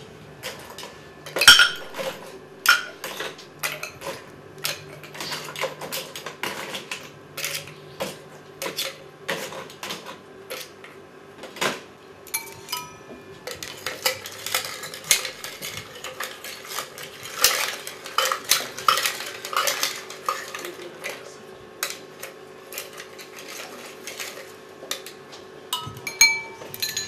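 Bar spoon stirring ice in a cocktail shaker to chill it: a steady run of clinks and rattles against the shaker, busiest in the middle, with a few brief ringing notes.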